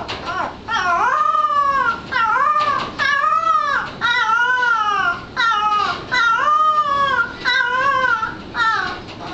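Bloodhound puppy howling in a string of about nine short, high calls that bend up and down in pitch: a young hound's first attempts at baying.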